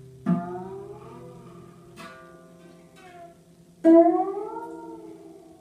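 Pedal harp string plucked while the shaft of a tuning key slides along it, so each note glides up and then back down in pitch, imitating a whale's song. Two strong plucks about three and a half seconds apart, with a fainter one between.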